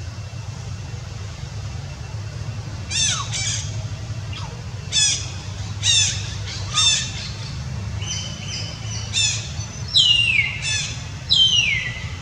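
Newborn kittens mewing: a run of short, high-pitched cries from about three seconds in, ending in two longer cries that fall in pitch, over a steady low hum.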